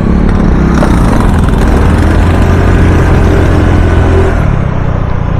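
Motor scooter engine running steadily while riding, mixed with wind and road rush. About two seconds in, a deeper engine note grows stronger, then fades a little after four seconds.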